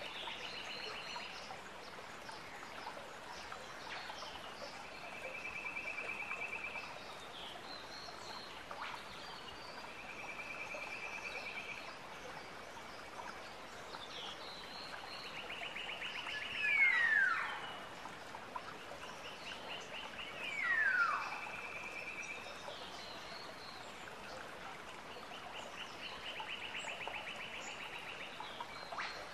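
Wild birdsong: a rapid, dry trill repeated every few seconds, with two loud falling whistles a little past halfway, over faint background hiss.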